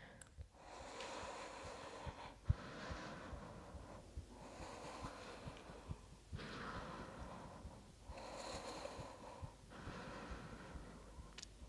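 Faint, even breathing of a woman holding a deep chair pose, one breath about every one and a half to two seconds. A single soft low thump comes about two and a half seconds in.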